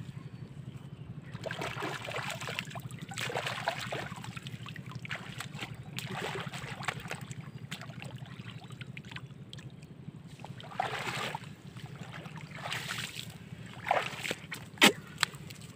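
Shallow muddy water sloshing and splashing in irregular bursts as hands and feet work through the soft mud of a pond bottom, over a steady low hum. Near the end come a few sharp squelches, the loudest of them a sucking sound from the mud.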